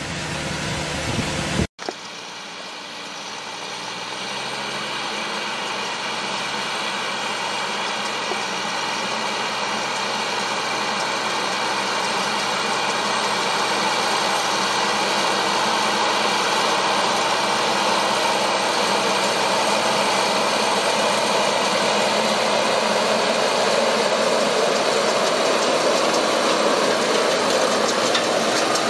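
A tractor's diesel engine runs steadily with an even drone, growing slowly louder. It starts after a short stretch of wind-like noise cuts off abruptly about two seconds in.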